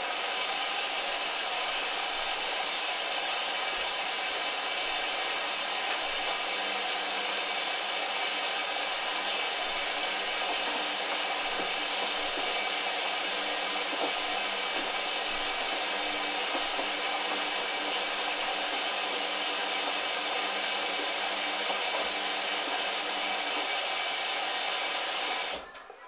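Hoover Dynamic washing machine taking in water at the start of a rinse: a loud, steady hiss of water rushing into the drum, which cuts off suddenly near the end as the fill stops.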